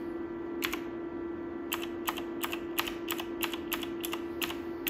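Keystrokes on the Dolch PAC 60 luggable's drop-down keyboard: a single press, then a quick irregular run of about a dozen clicking presses, roughly three to four a second, as the cursor is stepped through the Minix partition table fields. A steady low hum runs underneath.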